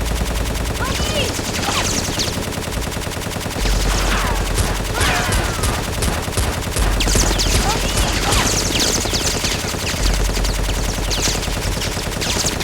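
Sustained rapid gunfire: many automatic-weapon shots overlapping in a continuous, dense volley, with a few whizzing, gliding streaks among them, as in a gun-battle sound effect.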